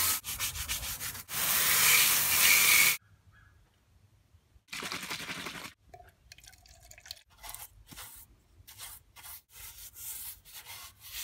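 Garden hose spraying water hard against the underside of a steel lawn mower deck, cutting off about three seconds in. A short splash of liquid being poured follows about five seconds in. Then a paintbrush scrubs rust inhibitor onto the rusted deck in quick scratchy strokes, about three a second.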